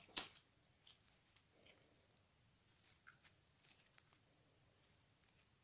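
Metallic slime being stretched and pressed by hand: a short, loud sticky crackle about a quarter second in, then scattered faint crackles and snaps as it pulls and folds.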